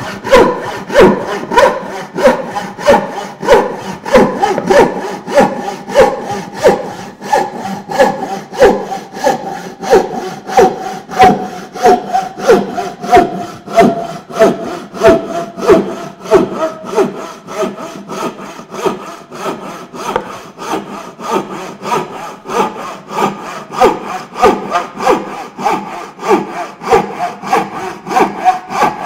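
Wooden-framed turning saw cutting a curve through a pine board by hand, with even rasping strokes at about two a second.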